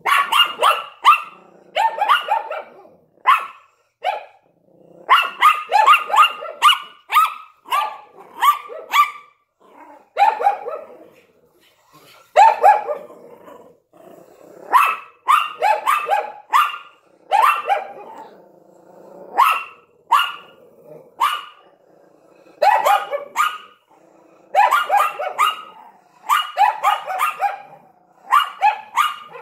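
Small dogs, a Yorkshire Terrier and a Lhasa Apso, barking in rapid volleys of sharp, high barks with short pauses between them, and a low growl between volleys now and then.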